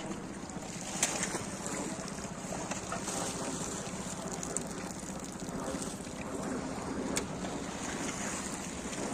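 Seaside ambience: wind on the microphone and small waves washing against the rocks of a seawall, a steady noise, with two sharp clicks, one about a second in and one near the end.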